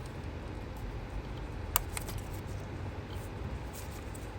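Hand work on the engine's coil packs: one sharp click a little under two seconds in, a fainter one just after, and a few light ticks, over a low steady background rumble.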